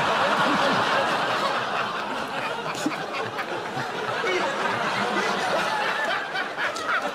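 Studio audience laughing, loudest in the first couple of seconds and carrying on through.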